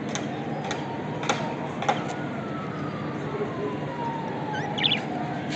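A group of budgerigars chattering steadily, with scattered sharp clicks and a short burst of rising chirps near the end. A long, slowly falling tone runs through the middle.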